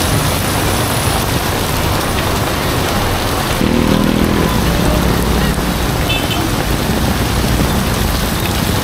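Heavy rain falling steadily, an even hiss of downpour. About four seconds in, a brief low hum rises over it.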